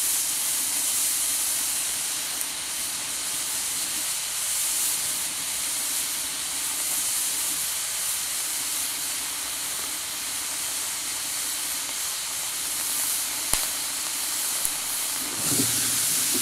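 Oxy-acetylene welding torch hissing steadily with a small flame as it fusion-welds a seam in thin sheet steel, the molten puddle being walked across the joint. The hiss grows louder and rougher near the end.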